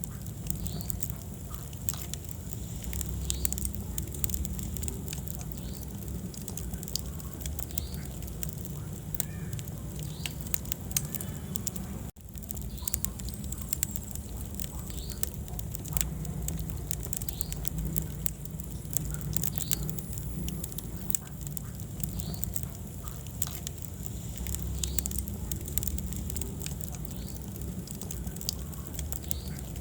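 Wood fire crackling in a fireplace: a steady low rumble of flames with many small, irregular pops and snaps from the burning logs. The sound cuts out for an instant about twelve seconds in.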